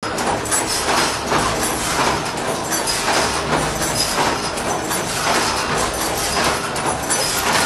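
Automatic shoelace tipping machine running, a repeated mechanical stroke about once a second over a steady low machine hum.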